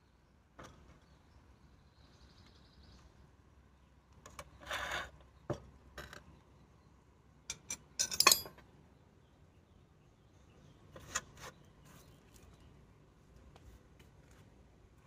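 Light clinks and knocks of flowerpots and gardening tools being handled during repotting, with a short scraping rustle about five seconds in and the loudest clatter about eight seconds in.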